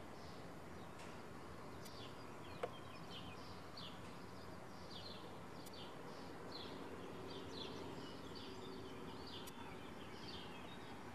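Small birds chirping in many short, high calls over a faint steady background hum, with one sharp click about two and a half seconds in.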